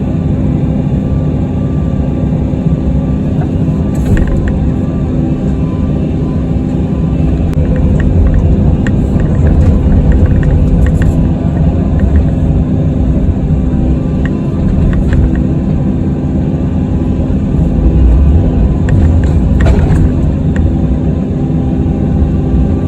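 Kobelco SK85 excavator's diesel engine running steadily, heard from inside the cab, with a few scattered sharp clicks.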